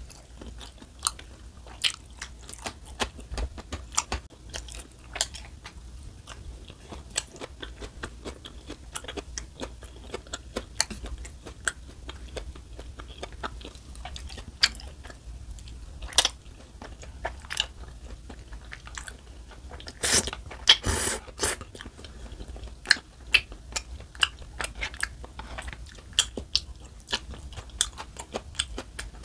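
A person chewing rose tteokbokki and noodles: a steady run of small wet chewing clicks and bites, with a longer, denser stretch of chewing noise about twenty seconds in.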